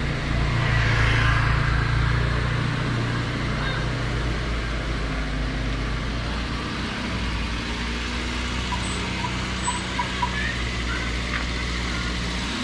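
A motor vehicle engine running steadily at low revs, with a few light ticks about ten seconds in.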